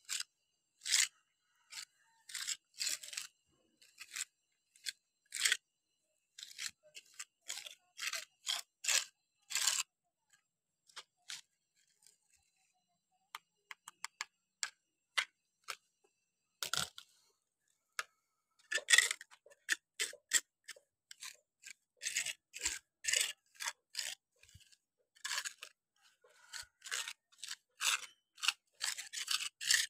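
A small trowel scraping and pressing cement grout into a crack in a concrete floor, in short irregular strokes with a few brief pauses.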